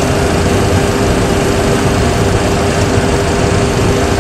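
Boeing 737 Classic full flight simulator's cockpit sound in the climb: steady simulated engine and airflow noise, an even rush with one constant hum running through it.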